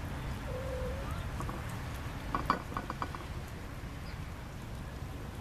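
Kittens licking and eating tuna off a white plate, with a quick run of light clinks against the plate about halfway through, over a low steady outdoor rumble.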